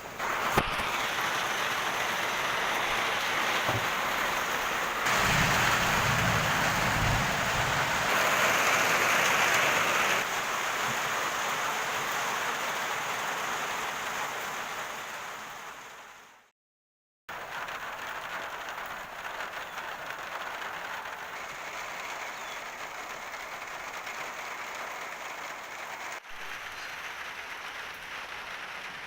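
Steady rain pouring down, louder for several seconds about five seconds in with a low rumble under it. It fades out about sixteen seconds in and, after a brief gap, the rain comes back steadily.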